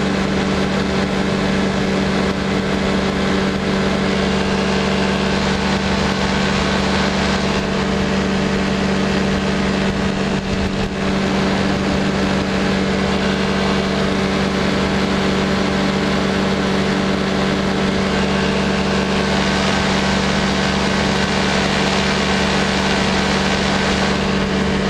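Powered parachute's engine and propeller running steadily in cruise flight, holding one even pitch.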